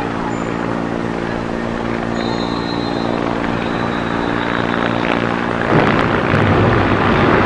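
NYPD helicopter running steadily as it flies off. About six seconds in, a sudden loud rushing noise takes over and drowns the helicopter out as the South Tower begins to collapse.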